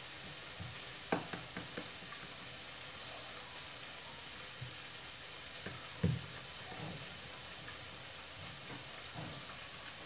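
Roti dough being rolled out with a rolling pin on a rolling board: soft knocks and taps of the pin and dough against the board, the loudest about six seconds in, over a steady faint hiss.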